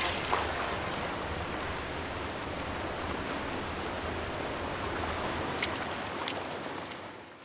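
Steady wash of surf on a beach, with a couple of faint clicks late on, fading out near the end.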